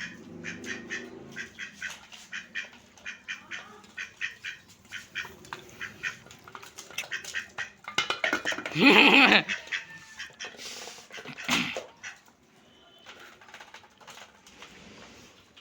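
Animal calls: a rapid run of short calls for the first eight seconds or so, then one loud, drawn-out pitched call about nine seconds in and a shorter loud one near twelve seconds.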